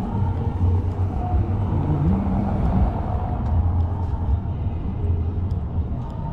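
A motor vehicle's engine running, a steady low rumble whose pitch rises briefly about two seconds in.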